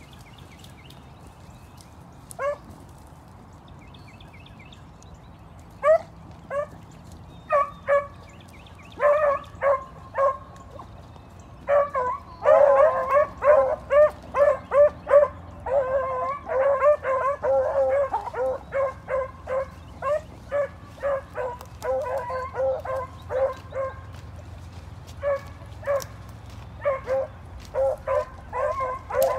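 A pack of three beagles baying as they run a rabbit's scent trail. One call comes a couple of seconds in, then scattered bays from about six seconds, building to several dogs giving tongue together, thickest from about twelve to eighteen seconds in, and carrying on to the end.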